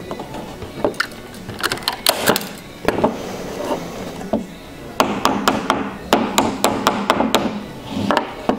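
Small hammer tapping fasteners into a wooden canvas stretcher bar. Scattered single strikes, then a quick run of about four taps a second from about five seconds in.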